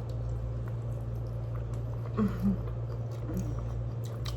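A person eating chicken wings, chewing with faint mouth clicks and giving two short "mm" hums about two seconds in, then a softer one, over a steady low hum.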